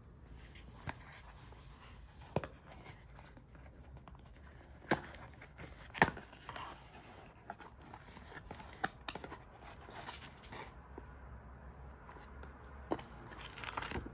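Cardboard charger box being handled and opened by hand: scattered sharp clicks and taps of the box and its flaps, the loudest about six seconds in, then paper rustling near the end as the printed leaflets are lifted out.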